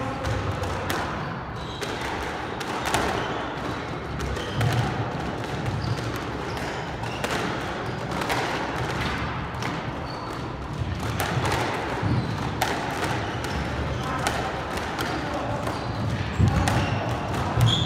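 Squash ball impacts: repeated sharp thuds of the ball striking the racquets, the walls and the wooden floor during a rally, mixed with short high squeaks of court shoes on the wooden floor.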